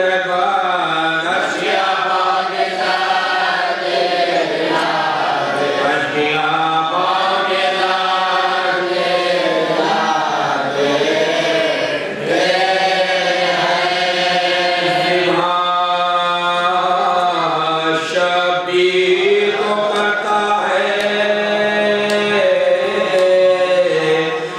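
Men's voices chanting a noha, a Shia lament, led by one reciter singing into a microphone, with a low steady drone held beneath the melody.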